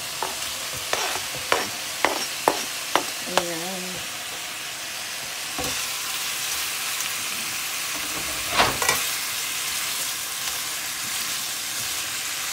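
Bacon sizzling in a frying pan, with a utensil clicking and scraping against the pan several times in the first few seconds and again a little past the middle. The sizzle gets louder about halfway through.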